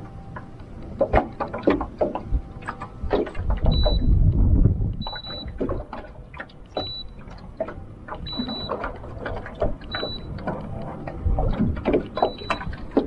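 Waves slapping and knocking against the hull of a small boat in choppy, windy water, with a gust of wind rumbling on the microphone about four seconds in. A short, high electronic beep sounds six times, about every second and a half, from about four seconds in.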